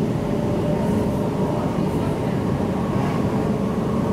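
MTR Tung Chung line K-train running along the track, heard from inside the car: a steady rumble of wheels and running gear with a faint steady hum over it.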